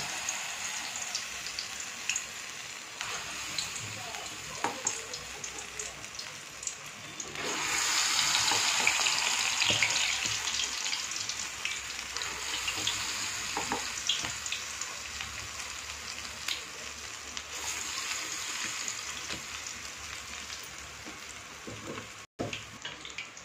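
Medu vada batter deep-frying in hot oil in a kadai: a steady sizzling hiss full of small crackles and pops, which swells louder for a few seconds about a third of the way in.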